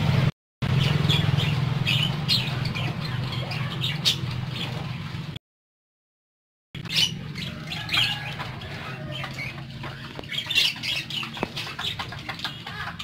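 A flock of caged budgerigars chirping and squawking in quick, short calls, over a low steady hum in the first few seconds. The sound cuts out to dead silence twice: very briefly near the start and for about a second around the middle.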